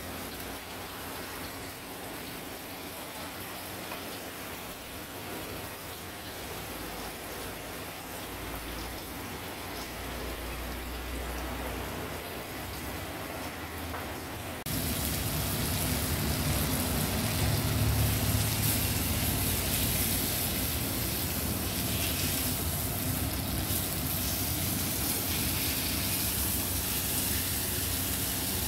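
Pieces of food sizzling as they fry in a pan, a loud steady hiss that begins suddenly about halfway through. Before it there is only a quieter steady background hiss.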